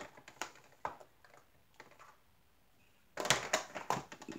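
Small clear plastic drill jars clicking and tapping against a hard plastic storage case as they are set into its compartments: scattered light clicks at first, a short pause, then a quick run of clicks near the end.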